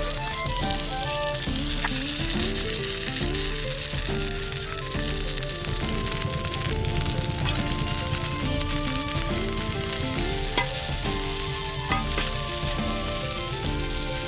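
Food sizzling as it fries over a campfire, with a few sharp clicks about two, ten and a half, and twelve seconds in, the one at ten and a half the loudest. Background music with a stepping melody plays throughout.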